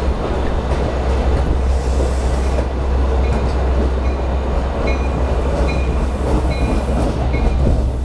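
LIRR diesel-electric locomotive train moving slowly on the track, a steady heavy rumble of engine and wheels on rail. From about three seconds in, short high ringing tones repeat every half second or so.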